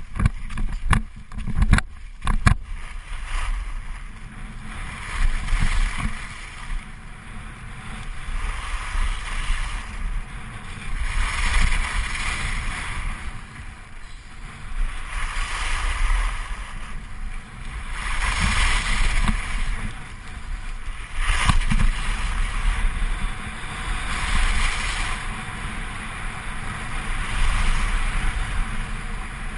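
Skis carving down a groomed race course: the edges scrape the snow in a swell of hiss about every three seconds, one per turn, over a steady low rumble of wind on the camera's microphone. A few sharp knocks come in the first two seconds.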